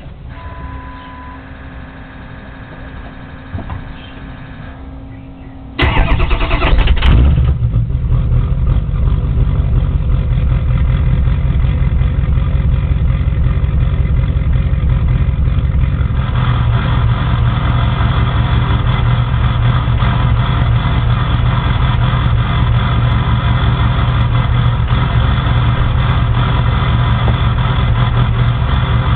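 Ford 6.0 Powerstroke V8 turbo-diesel cold start: a steady hum and a short beep with the key on, then about six seconds in it cranks briefly, fires and runs at a loud, steady idle that turns brighter about ten seconds later. The owner puts the hard start down to bad injectors or glow plugs.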